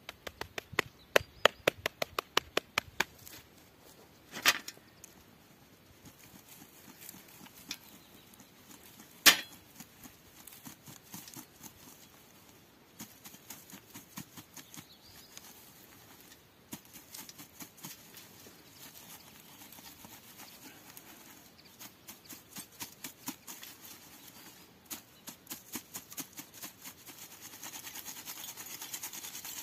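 Wood ash being sifted through a handheld metal mesh sieve over a galvanized bucket: a quick run of taps in the first few seconds, two louder knocks, and faint rattling and scraping of ash against the mesh that thickens into a soft hiss near the end.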